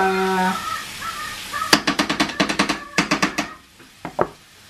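A short voice at the start, then a quick run of about ten sharp clicks or taps over a second and a half, with two more near the end.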